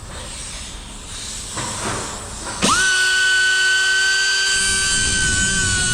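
A high-speed rotary cutting tool or grinder spins up sharply about two and a half seconds in and holds a steady high-pitched whine, its pitch sagging a little near the end. A hissing noise comes before it.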